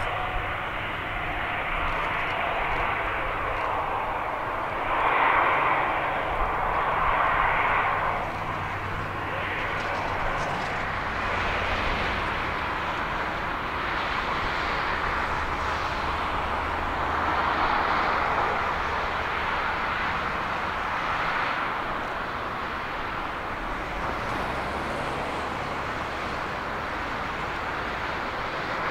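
The four CFM56 turbofan engines of an Airbus A340-300 running at taxi power as the airliner rolls slowly past, a steady jet engine noise. It swells a little about five to eight seconds in and again around eighteen seconds.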